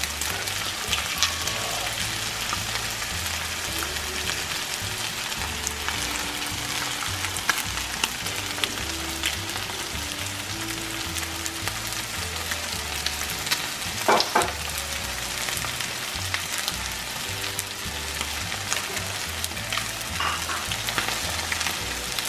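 Chicken pieces sizzling as they fry in oil with garlic in a pan, stirred now and then, with a few sharp taps of the stirring utensil on the pan, the loudest about two-thirds of the way through.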